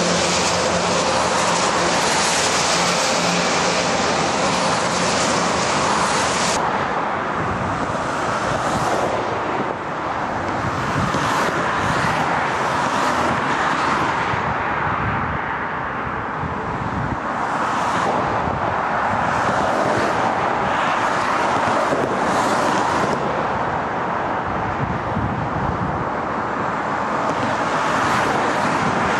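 Road traffic on a dual carriageway. For the first few seconds it is the hiss of tyres on a wet road surface, then it changes abruptly to the duller, steady noise of cars and trucks passing.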